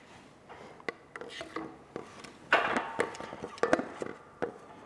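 Scattered light taps, clicks and rubbing of parts being handled in a shop press as a PVC pipe is set over a T56 transmission's synchronizer and gear stack, with a short metallic ring about two and a half seconds in.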